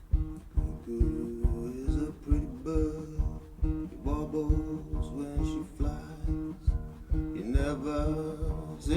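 Home-built percussion guitar played solo: an old classical acoustic fitted with steel strings, a tin cigar-box treble soundboard, a cast-iron bass horn and a pickup. Picked melody notes, some bent, sound over a steady thumping beat of about two a second, with a little delay on the sound.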